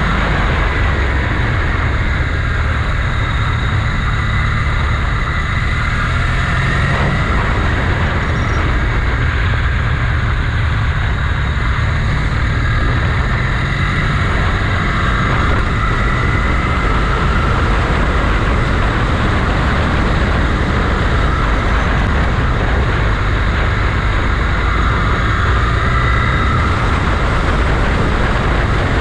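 Motorcycle engine running steadily while riding, its pitch rising and falling a little with the throttle, over constant road and wind noise.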